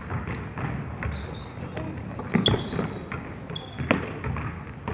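Basketball bouncing on a hardwood gym floor amid players' sneakers squeaking, with a string of sharp thuds, the loudest about two and a half and four seconds in.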